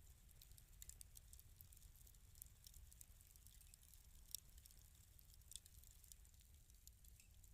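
Wood fire in a fireplace crackling faintly: irregular sharp pops and snaps over a soft low rumble.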